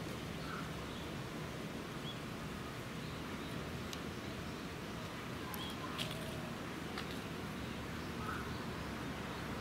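Outdoor ambience: a steady low rumble, with a few short faint chirps scattered through it and a few sharp clicks, the loudest about six seconds in.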